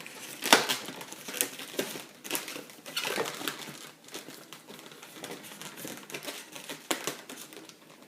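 Latex modelling balloon being squeezed and twisted by hand, rubbing and crinkling in short irregular strokes, the loudest about half a second in.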